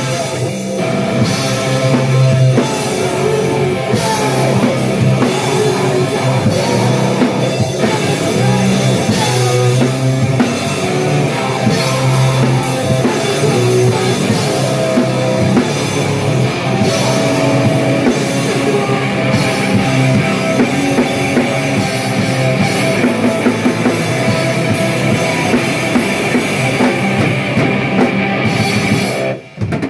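Two-piece powerviolence band playing live: electric guitar and drum kit, loud and dense, stopping abruptly near the end.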